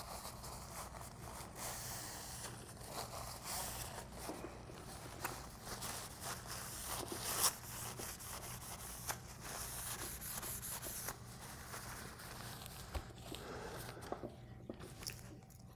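Paper towel rubbing and crinkling against the metal of a dismantled Hardinge cross slide as it is wiped clean, with a few small clicks of metal parts being handled.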